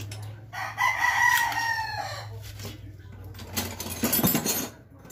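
One long pitched animal call about a second in, lasting over a second and falling in pitch at its end, over a steady low hum. A few light clicks and rustles of small parts being handled follow.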